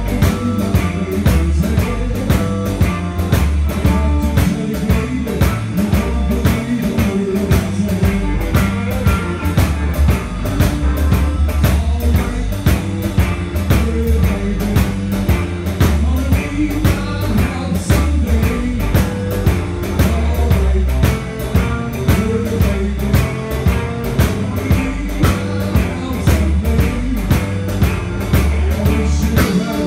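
Live blues-rock band playing: two electric guitars, electric bass and a Pearl drum kit keeping a steady beat.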